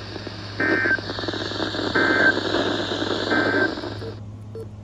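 Three short bursts of EAS SAME digital data tones, evenly spaced buzzing chirps, over steady radio hiss that cuts off suddenly near the end. This is the end-of-message code closing a weather warning broadcast.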